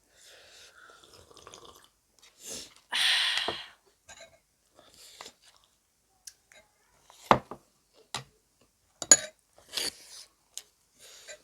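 Close-up eating sounds of chole bhature being eaten: chewing with scattered wet mouth clicks and sharp little ticks. About three seconds in there is a louder hissy burst lasting about half a second.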